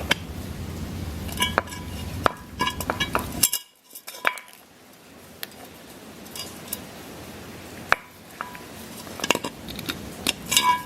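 Light metallic clinks and taps, some ringing briefly, as a pump hose is fitted to a tubeless air-shot inflator canister on a bike wheel's valve. A low background hum cuts off suddenly a little after three seconds in.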